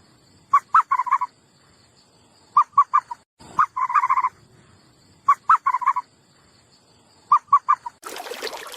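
An animal calling repeatedly: short pitched notes in groups of two or three, some running into a fast rattling trill, coming about every two to two and a half seconds. Shortly before the end, a louder, rougher sound starts.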